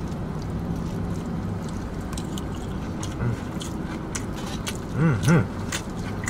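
Close-up chewing and mouth smacking on a burrito bowl of lettuce and meat, with many small crisp clicks, over a steady low hum from the idling car and its air conditioning. About five seconds in come two short hummed "mm" sounds, the loudest part.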